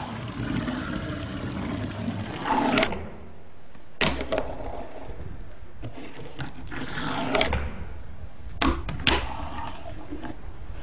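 Fingerboard wheels rolling in swelling rushes, with sharp clacks of the board: one about four seconds in and two close together later on.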